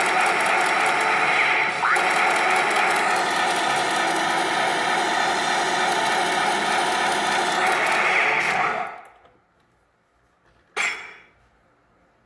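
RoboCop pachinko machine in play: a dense rattle and clicking of steel balls with the machine's electronic sound effects over it. It cuts off about nine seconds in, and one short sound follows near the end.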